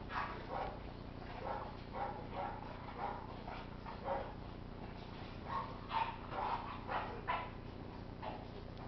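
Several dogs barking and yapping in short, repeated bursts as they tug at a sack, most densely in the second half.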